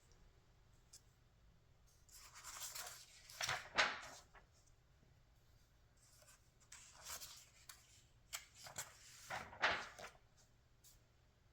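Magazine pages being turned by hand, with paper rustling and swishing in two page turns: one about two seconds in and one about seven seconds in.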